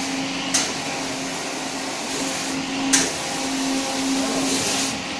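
Rotary bottle washing machine running: a steady motor hum under the continuous hiss of its water spray jets. The spray hiss briefly drops out and comes back with a sharp burst twice, about every two and a half seconds, as the machine cycles.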